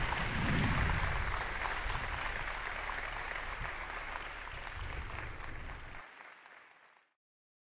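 A group of people applauding, with a low rumble underneath; the sound fades out about six to seven seconds in.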